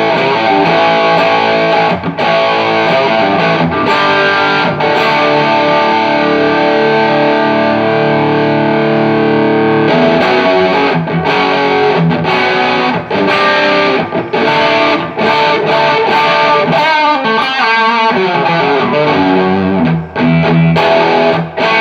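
Electric guitar played through a Carr Lincoln valve amplifier running new JJ EL84 power tubes biased cooler: distorted chords and notes held and left to ring, with short breaks between phrases.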